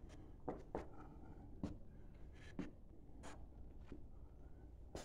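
Faint scattered scuffs and clicks, about half a dozen at irregular intervals, over a low steady hum.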